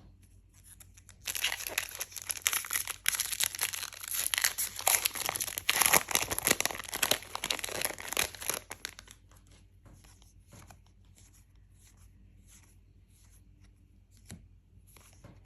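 Foil booster pack wrapper of a Lorcana trading card game being torn open and crinkled for several seconds, then only faint light taps as the cards are handled.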